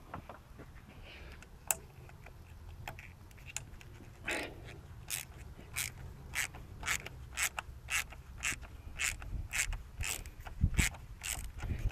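Ratchet wrench clicking in a steady rhythm, about two to three clicks a second, starting about four seconds in, as bolts holding the fuel rail are loosened.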